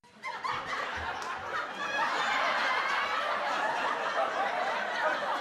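Canned audience laughter from a sitcom laugh track, building up about two seconds in and then holding steady.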